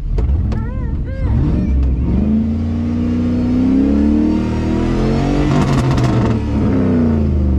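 Chevy truck engine revving hard under throttle: its pitch climbs about two seconds in, holds high, then eases down near the end.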